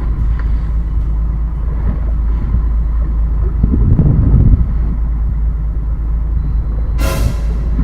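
Steady low rumble aboard a fishing boat at sea, swelling a little about halfway through. Near the end comes a short hissing burst, like spray or a splash.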